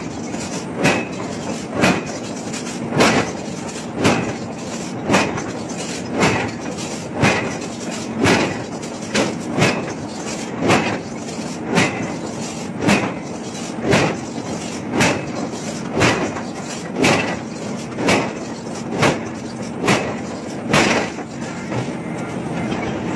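Heavy open-die forging machine striking a large hot steel cylinder with regular blows about once a second, over a steady machine hum; the blows stop shortly before the end.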